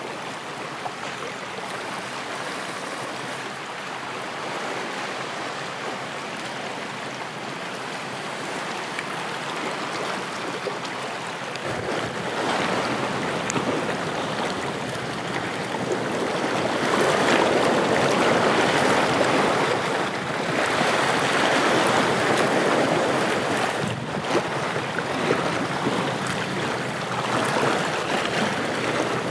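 Sea water splashing and sloshing around a person wading chest-deep and dragging a net, over small waves lapping. It grows louder about twelve seconds in.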